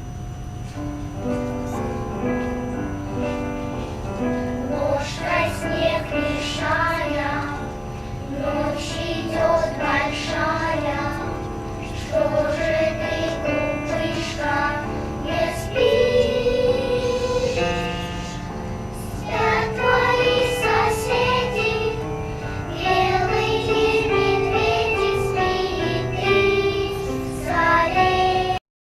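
Children's choir singing a song, the voices moving from note to note throughout; the sound cuts off abruptly at the very end.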